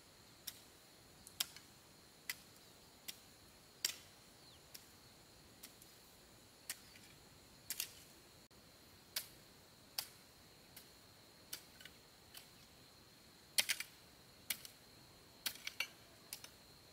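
Sharp clicks or light taps at uneven spacing, roughly one a second, with a quicker cluster late on, over a faint steady high-pitched tone.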